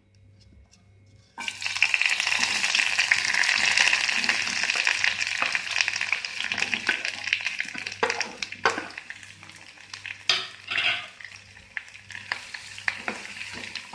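Sliced onions, curry leaves and green chillies hitting hot coconut oil in a pan, bursting into a loud sizzle about a second and a half in that slowly dies down. Then a spoon stirring and scraping in the pan with scattered clicks over the softer frying.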